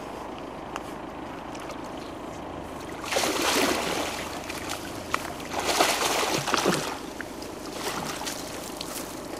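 Water splashing and sloshing as a landing net holding a carp is lifted out of a lake. It comes in two loud bursts, about three seconds in and again around six seconds, with drips trickling off between and after.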